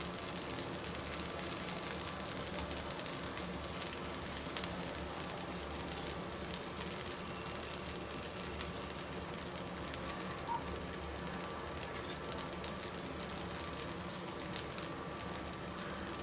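Dosa cooking in oil on a hot pan: a steady sizzling hiss with small scattered crackles and a low steady hum underneath.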